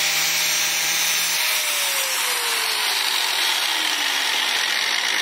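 A 4.5-inch angle grinder's abrasive wheel grinding a burr off steel angle iron, with a gritty hiss. Its motor whine holds steady, then falls slowly in pitch from about a second and a half in as the wheel spins down.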